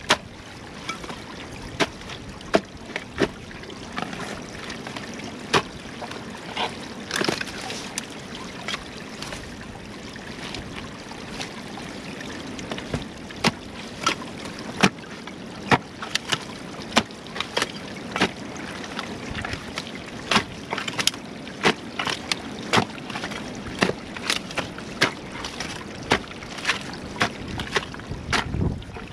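Steel digging bar jabbed again and again into the mud and packed sticks of a beaver dam to dig out a hole, giving irregular sharp knocks and cracks. Water trickles and sloshes underneath.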